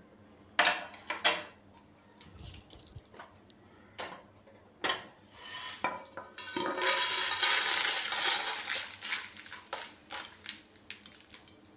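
Dry-roasted dals, coriander seeds and dried red chillies poured from a nonstick kadai onto a steel plate. The seeds make a loud rattling rush on the metal from about seven to nine seconds in, with scattered clinks and scrapes of metal cookware before and after.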